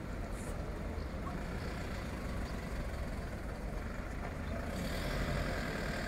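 Outdoor street ambience: a steady low rumble, with a hiss swelling about five seconds in.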